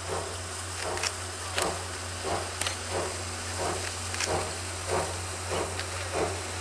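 Steam locomotive C57 180 exhausting in slow, even chuffs, about one and a half beats a second, as it starts to work and pull away.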